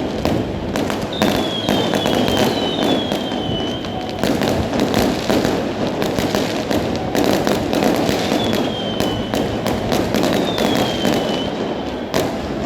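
A fireworks display, with dense, continuous crackling and popping from bursting shells. Several short whistles glide downward, two of them near the start and two more past the middle.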